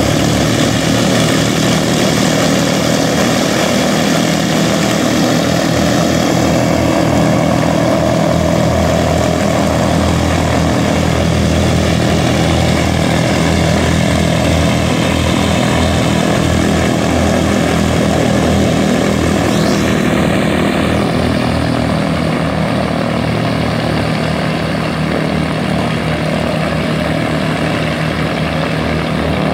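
The two Wright R-2600 Cyclone twin-row radial engines of a B-25 Mitchell bomber running steadily on the ground, loud, with propellers turning. It eases a little quieter about two-thirds of the way through.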